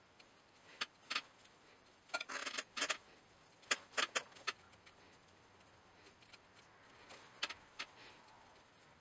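Fingers rubbing, scraping and tapping on a clay pot as a spout is pressed and smoothed into place: a few short scrapes and clicks, bunched about two to four seconds in and again near the end.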